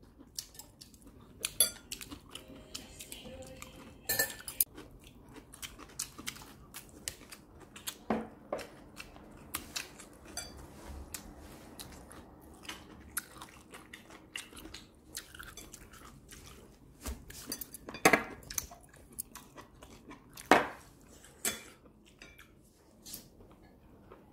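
Metal chopsticks and a spoon clicking and scraping against ceramic bowls and plates at a meal, with chewing. The clicks are scattered and irregular, a handful of them louder clinks.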